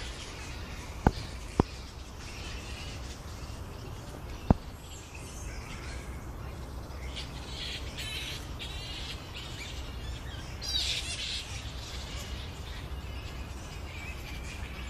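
A roosting colony of flying foxes calling: clusters of high-pitched calls come and go, loudest about eleven seconds in. Three sharp clicks stand out, two close together about a second in and one about four and a half seconds in.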